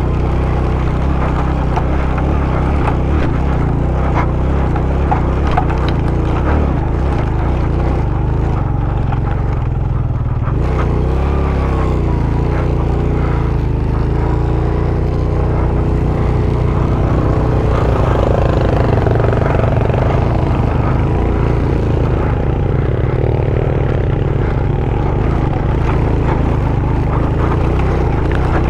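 Suzuki GS150SE's single-cylinder four-stroke engine running under load as the motorcycle climbs a rocky dirt track, with a heavy low rumble throughout. Its note wavers up and down between about ten and twenty seconds in, with scattered short knocks from riding over the stones.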